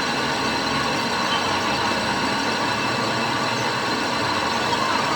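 An engine or motor running steadily at a constant pitch and level, with no changes in speed.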